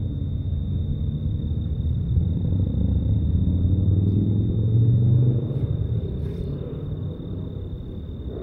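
A low rumble that swells to its loudest about five seconds in and then fades away, with a thin steady high-pitched whine throughout.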